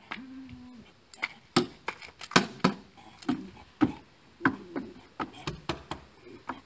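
Walking cane knocking on wooden steps and stone paving: about a dozen sharp, uneven taps. A brief low hum sounds in the first second.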